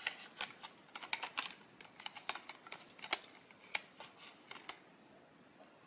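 Hard plastic clicking and tapping as a pocket photo printer's case and cover are handled and opened. It is a quick, irregular run of sharp clicks that stops near the end.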